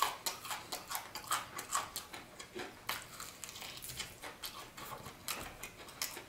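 Crispy battered fried chicken wing crust crunching as it is bitten and chewed: a fast, irregular run of sharp crackles.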